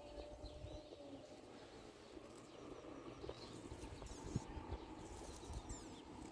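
Faint outdoor ambience with brief high bird chirps now and then and a few soft knocks.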